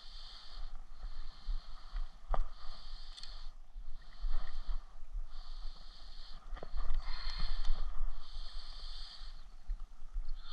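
Wind rumble on the microphone and a few short clicks and knocks from handling a bass and a handheld digital fish scale, over a high buzz that comes and goes in pulses of about a second.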